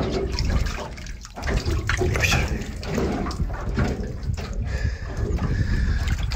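Water sloshing and dripping, with irregular short splashes over a low rumble.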